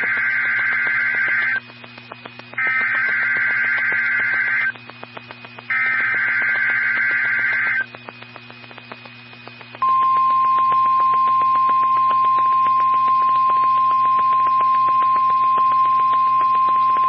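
NOAA Weather Radio Emergency Alert System SAME header: three bursts of screeching digital data tones, each about two seconds long with a second's gap between them. After a pause comes the steady, single-pitch 1050 Hz weather radio warning alarm tone, which holds to the end. Together they announce a (test) tornado warning, heard through the receiver's background hum and hiss.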